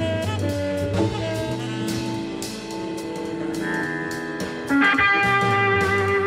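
Live blues band playing: Hammond organ and drum kit with electric guitar. About three-quarters of the way through the music jumps louder as a bright sustained lead line comes in.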